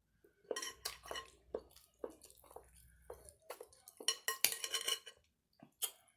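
Close-miked eating: chewing with a string of short wet clicks and light clinks, busiest about four to five seconds in.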